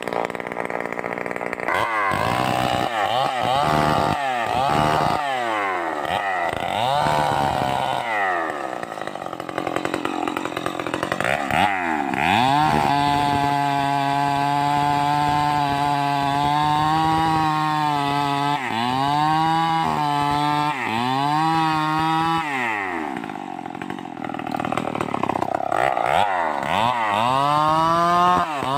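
Stihl 038 two-stroke chainsaw revving up and down in quick blips, then held at high revs for several seconds at a time, dropping and climbing again as it cuts into wood.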